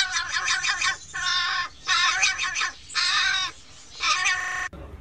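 A tame crow cawing in a series of harsh, rasping calls, about five in a row with short gaps, which cut off abruptly near the end.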